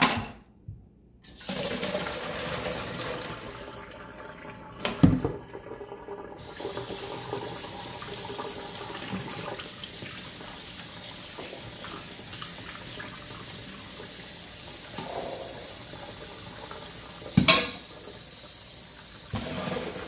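Kitchen faucet running into a stainless steel bowl as diced potatoes are rinsed, the water starting about a second in. A few sharp knocks of the metal bowl against the sink stand out: one near the start, one about five seconds in and one near the end.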